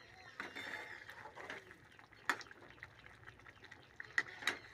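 Metal spatula stirring a thick prawn curry in a metal kadai, scraping through the gravy and tapping sharply against the pan about two seconds in and twice near the end, over the faint bubbling of the simmering curry.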